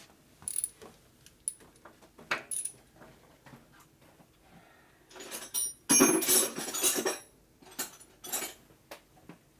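Metal hand tools clinking and clattering as they are rummaged through in a tool bucket while someone searches for a wrench. Scattered single clinks, then a loud stretch of rattling metal with some ringing from about five to seven and a half seconds in.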